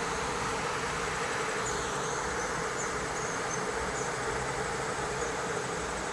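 Insects, crickets among them, chirping and droning steadily over an even background hiss, with a few faint high chirps in the middle.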